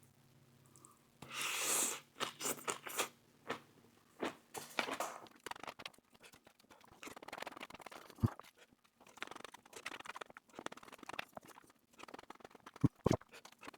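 A person biting into and chewing a Veggie Delight sandwich loaded with lettuce, pickle and pickled peppers, heard close up. There is a crunchy bite about a second and a half in, then steady chewing crunches with a few sharp mouth clicks near the end.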